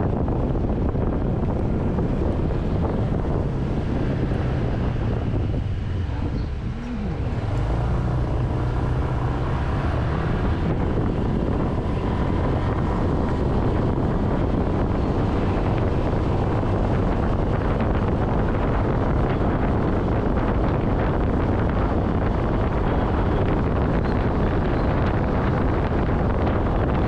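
Wind rushing over the microphone during a motorcycle ride, with vehicle drone underneath. The noise dips briefly about seven seconds in.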